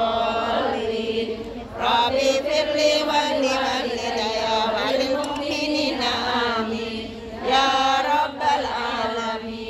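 A large congregation of women chanting an Arabic Quranic recitation in unison, with long, drawn-out notes.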